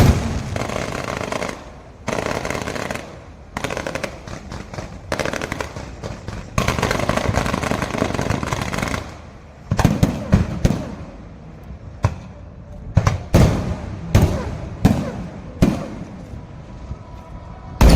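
Fireworks going off: stretches of dense rapid crackling, then, from about ten seconds in, a string of separate sharp bangs roughly a second apart, the loudest one at the very end.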